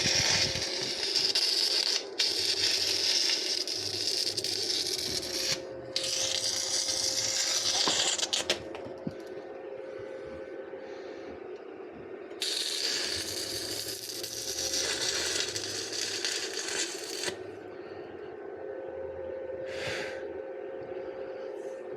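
Electric arc welding on a steel safe hinge: the arc crackles and sizzles in two long runs, the first about eight seconds long with two short breaks, the second of about five seconds after a pause. A steady hum sits underneath.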